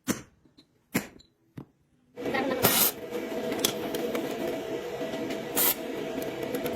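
A few sharp knocks on metal, then about two seconds in a workshop machine starts and runs steadily with a whirring hiss, twice briefly louder.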